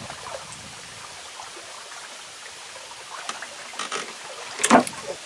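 River water trickling and lapping steadily against a small wooden boat's hull, with a few faint ticks. Near the end comes one short, sharp knock, the loudest sound.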